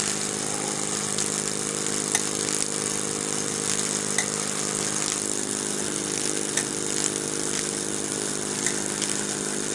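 Miniature Lutz Hielscher live-steam engine running steadily while it drives its small dyno and trip hammers: an even mechanical hum with a hiss over it and faint sharp ticks every couple of seconds.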